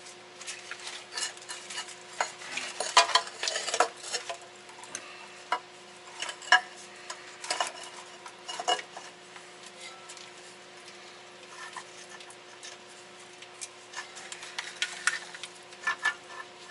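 Small metal tools and parts clinking and rattling in irregular bursts, busiest over the first few seconds and again near the end, over a steady hum.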